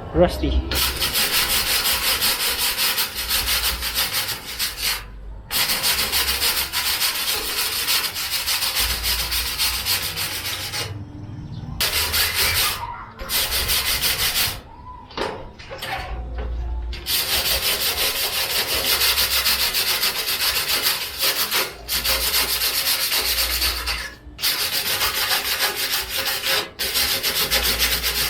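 Abrasive scrubbing of rust off the steel frame of an old computer case: a continuous rasping scrape made of rapid strokes, stopping briefly a few times.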